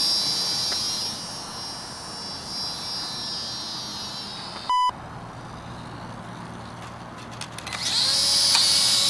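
Small electric motor and propeller of a micro RC biplane whining high. The whine fades away, then grows loud again about eight seconds in as the plane comes back past. A short electronic beep sounds about halfway through.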